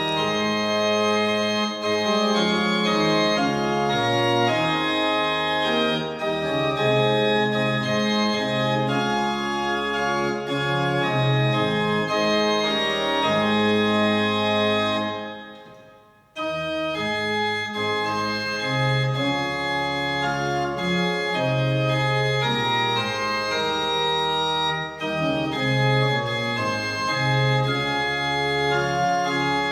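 Organ music playing slow sustained chords. It fades out about halfway through, then starts again abruptly.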